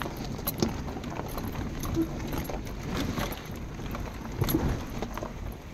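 Truck driving over a rocky dirt road: a low rumble with irregular knocks and crunches from the tyres on stones.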